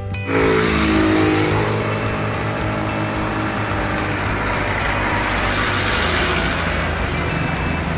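Road traffic: the engines of passing cars and motorcycles over a steady wash of road noise, with one engine's pitch falling over the first two seconds.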